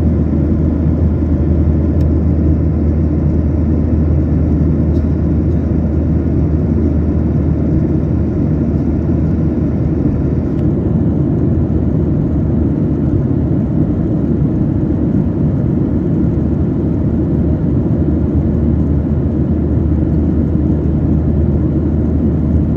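Cabin noise of a Boeing 737-800 in cruise, heard from a window seat over the wing: a steady, deep rumble of the CFM56-7B turbofans and the airflow past the fuselage.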